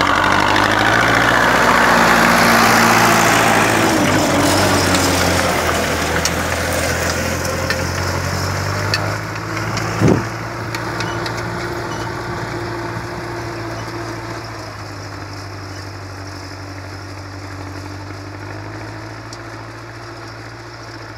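Diesel farm tractor running steadily under load as it pulls a harrow through dry soil, loud as it passes close and then fading as it drives away. A single brief thump about halfway through.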